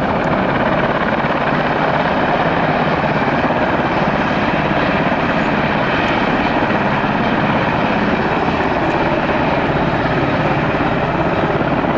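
Helicopter running steadily and loudly, its rotor and engine making one continuous noise.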